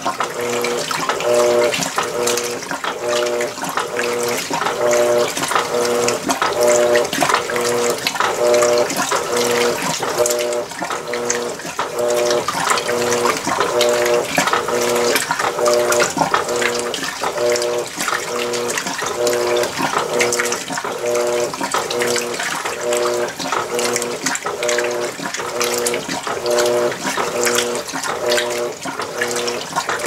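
Electrolux Premium Care 13 kg (LWI13) washing machine agitating a wash load: water and clothes swishing in the drum over a motor hum that pulses on and off in an even rhythm about once a second as the drive reverses back and forth.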